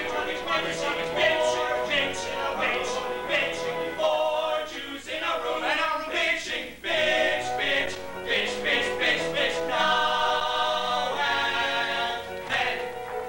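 Four male voices singing together in harmony in a musical-theatre ensemble number, with long held chords about ten seconds in.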